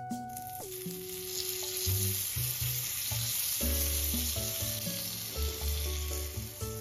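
Butter sizzling and frying on a hot nonstick pan as a sandwich toasts in it, setting in about half a second in and holding steady. Soft background music plays underneath.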